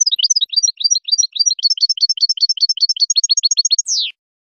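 European goldfinch singing: a fast run of short, high twittering notes that ends about four seconds in with one longer falling note.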